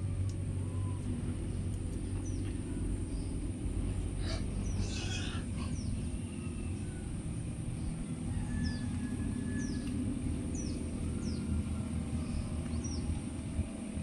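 Steady low rumble of outdoor background noise, with a brief rustle about five seconds in and a few faint, short, high bird chirps in the second half.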